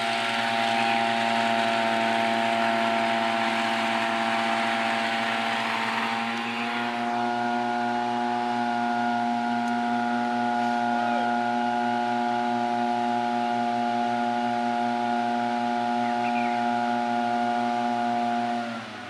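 Tea harvester's small engine running at high, steady speed, with a hiss over it that fades about six seconds in as the engine note rises slightly. Near the end the engine drops in pitch and goes quieter.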